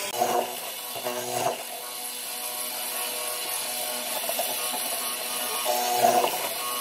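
Benchtop hollow-chisel mortiser running, its square chisel and auger bit plunging into a wooden beam: louder bursts of cutting near the start, about a second in, and about six seconds in, with the machine running more quietly between plunges.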